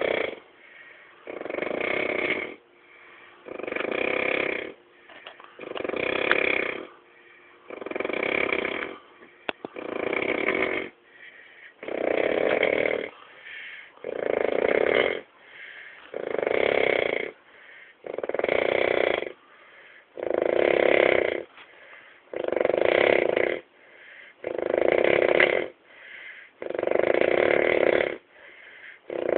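Steady, rhythmic snoring: a loud snore about every two seconds, each about a second long, with a softer breath between.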